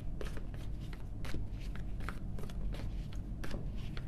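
Tarot cards being shuffled by hand: a quick, irregular run of light card clicks and flicks over a low steady hum.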